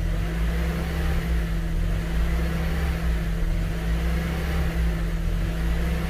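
Second-generation Honda CR-V's four-cylinder engine idling, heard from inside the cabin, a steady low hum with a faint slow waver in pitch. The engine has a hunting idle, its speed rising and falling.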